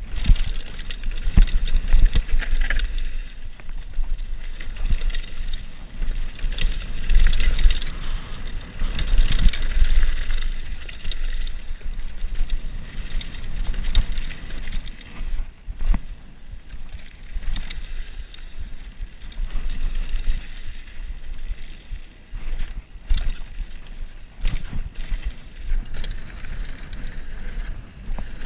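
Mountain bike riding fast down a dirt and gravel trail: tyres rolling over the ground, with the bike knocking and rattling over bumps. Wind buffets the microphone throughout.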